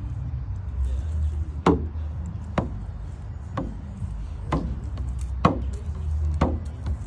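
Percussion struck in a steady slow beat, about one sharp hit a second, each with a brief ring, over a steady low rumble.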